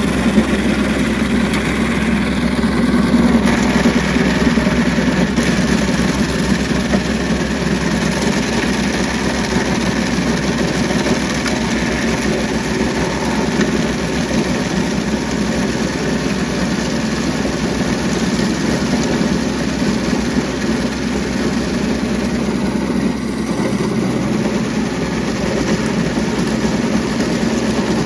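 Kubota B2650 compact tractor's three-cylinder diesel engine running steadily under load, driving a Woods PTO stump grinder.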